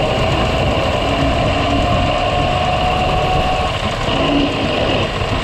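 Ford Model T's four-cylinder engine and planetary transmission running while the car drives, picked up right under the car at the transmission cover: a loud, steady mechanical rumble with a constant whine over it.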